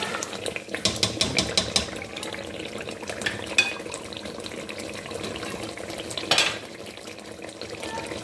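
A spoon stirring a pot of bubbling tomato stew, clicking and scraping against the side of the metal pot: a quick run of clicks about a second in, then single knocks and a longer scrape later on.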